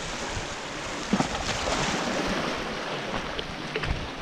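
Small waves washing over rocks on a pebble shore, with wind buffeting the microphone. The wash is steady and swells in the middle, and a few short sharp knocks come through, one about a second in and a couple near the end.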